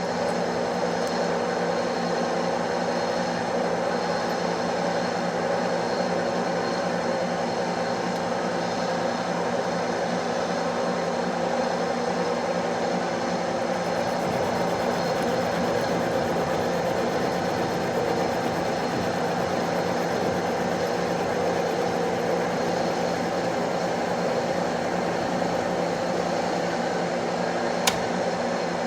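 Metal lathe running steadily while facing off the end of a 1-inch round steel bar, with a constant hum and whine of several steady tones. A single sharp click near the end.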